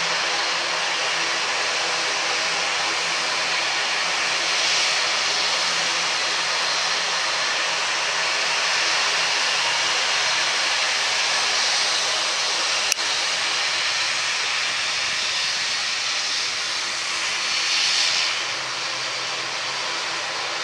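An ATR 72-500 turboprop airliner's engines and propellers running at taxi power as it turns on the runway: a steady, hissing whine that swells briefly twice. A single sharp click sounds about two-thirds of the way through.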